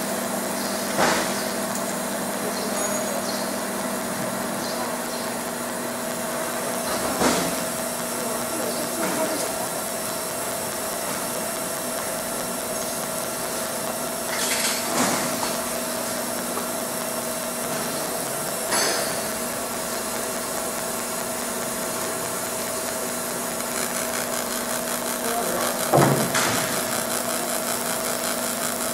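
Fiber laser marking machine deep-engraving an aluminium plate: a steady noise over a steady machine hum while the beam works the metal, broken by a handful of short sharp cracks.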